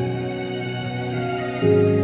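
Instrumental karaoke backing track played by a MagicSing E2 karaoke player: soft music of sustained chords with no singing. A new, louder chord comes in about one and a half seconds in.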